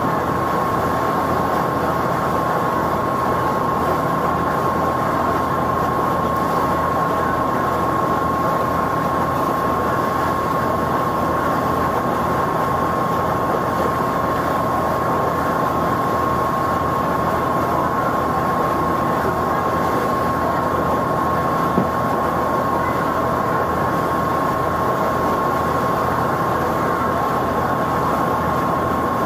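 A tour boat's engine running steadily under way, heard on board, with a constant high-pitched whine over the engine hum.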